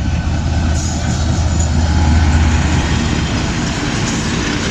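Freight train of flat cars and a brake van rolling past at speed, wheels clattering on the rails over a steady low drone that drops away about three seconds in.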